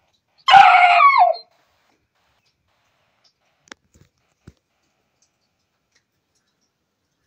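A dog gives one loud, strained cry about a second long, starting half a second in and dropping in pitch at the end. A few faint clicks follow.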